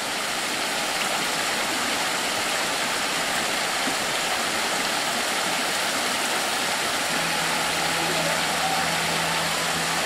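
Forest stream rushing over rocks below a small waterfall: a steady, even rush of water. A faint steady low hum joins about seven seconds in.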